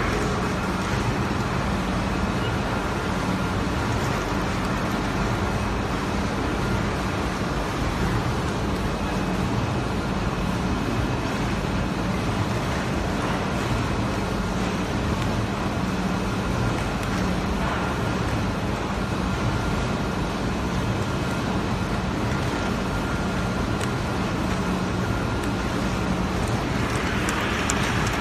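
Paper straw angle-cutting machine running steadily: a continuous mechanical whir with a low hum and faint high tones, unchanging throughout.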